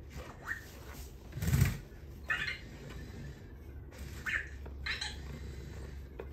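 A 1986 Playmates Cricket talking doll being handled and held up to the ear to check its speaker for static. There is a bump about a second and a half in and a few short high squeaks, over a faint steady low hum.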